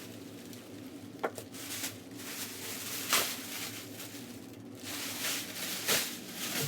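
Handling noises from unpacking a memory foam mattress: irregular rustling and swishing of wrapping with a few soft knocks, the loudest about three seconds in and again about six seconds in, over a steady low hum.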